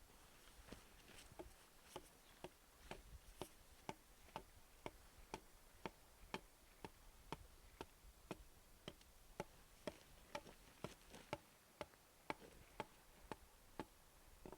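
Faint, evenly spaced clicks or taps, about two a second, keeping a steady rhythm.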